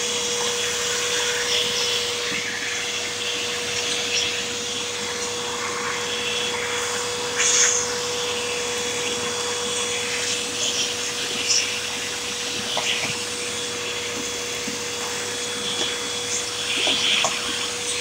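Vacuum cleaner running steadily on its hose attachment, a constant motor whine over a rush of airflow, with a few brief crackles as debris is sucked up.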